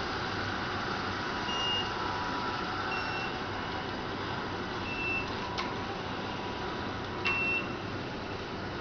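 Steady hiss from small wheeled robots driving across a carpeted floor, the recording sped up, with four short high beeps and two sharp clicks.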